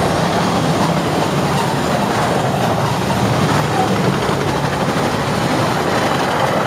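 Freight train cars rolling past: a steady, loud rumble of steel wheels on the rails.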